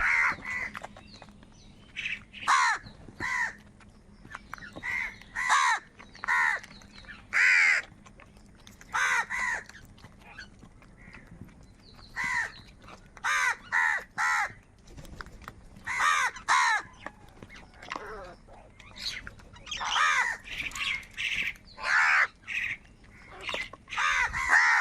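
Crows cawing: harsh calls, mostly in quick runs of two or three with short pauses between, overlapping near the end.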